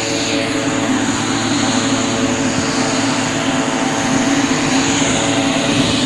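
An engine running at a steady speed, a constant drone with a hiss of noise over it.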